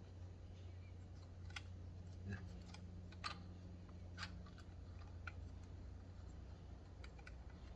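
Light metallic clicks and taps, about six spread out, as a dial test indicator and its holder are handled and fitted at a lathe tool post, over a steady low hum.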